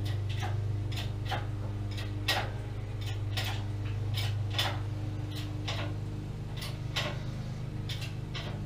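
Jack being worked to lift a heavy lathe headstock: a run of sharp clicks, about two a second and uneven in strength, over a steady low hum.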